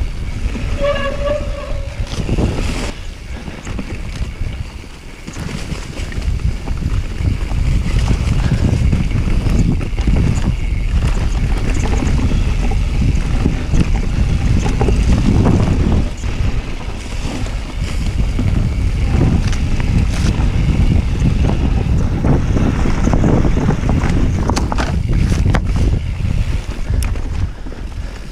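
Mountain bike riding fast down a dirt forest singletrack: wind buffeting the action-camera microphone over the knobbly tyres rumbling on the dirt, with frequent knocks and rattles from the bike over roots and bumps. A short pitched tone sounds about a second in.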